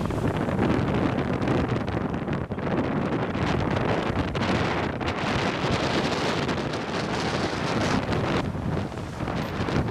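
Wind buffeting the microphone aboard a sailboat under way, a dense, gusting rush with the wash of the sea beneath it.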